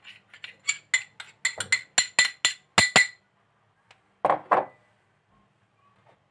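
A metal spoon tapping against the rim of a small bowl to knock cornstarch out into a saucepan: a quick run of about a dozen ringing clinks over roughly three seconds, then two duller knocks about four and a half seconds in.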